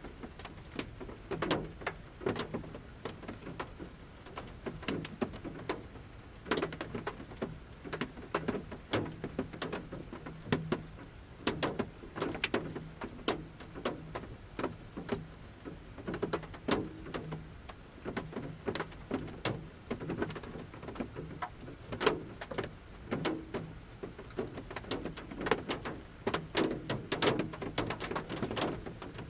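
Large raindrops falling from the forest canopy onto a camper van's metal roof, heard from inside the van: sharp single taps at irregular intervals over a soft patter of light rain.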